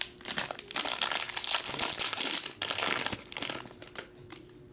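Trading card pack wrapper being crinkled and opened by hand: a busy, crackly rustle for about three and a half seconds that dies down near the end.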